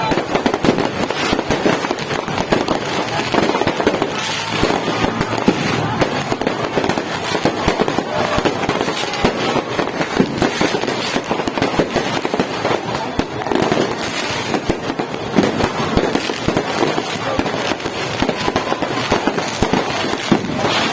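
Fireworks and firecrackers going off without pause, a dense run of overlapping cracks and pops.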